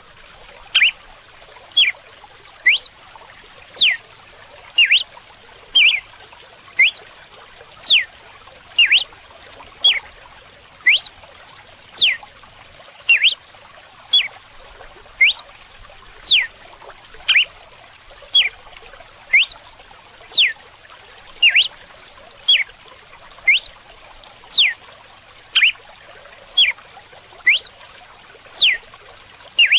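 Red-cowled cardinal (galo-de-campina) singing its whip-like 'açoite' song: short, sharp notes that sweep quickly up or down in pitch, about one a second and very regular. Steady running water trickles underneath.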